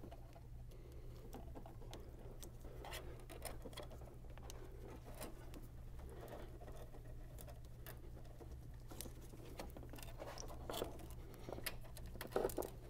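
Faint scattered clicks and rustling of wires and a plastic connector being handled as a terminal pin is worked into a Microsquirt wiring connector, with a quick cluster of clicks near the end. A steady low hum runs underneath.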